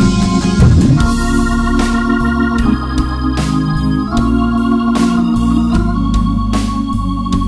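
Wersi Sonic OAX600 electronic organ playing held chords over a moving pedal bass line, voiced with a drawbar organ sound, with crisp percussive hits keeping time.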